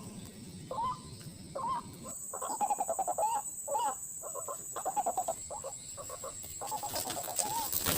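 White-breasted waterhen (ruak-ruak) calling: a series of short notes, each rising then falling in pitch, coming in a quick run through the middle. A steady high-pitched tone starts about two seconds in.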